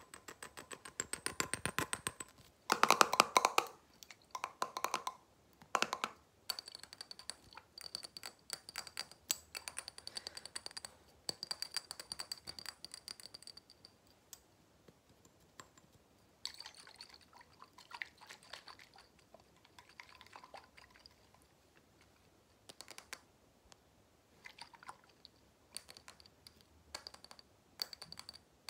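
Fingernails tapping fast on a glass jar of blue liquid with a metal screw lid, in quick runs of clicks with a short glassy ring. The tapping is densest and loudest about three seconds in, then comes in shorter runs with brief pauses.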